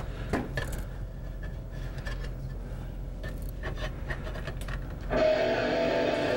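Low room hum with scattered faint clicks and rustles, then about five seconds in guitar-led music starts suddenly. The music is a video soundtrack played back through a classroom's speakers.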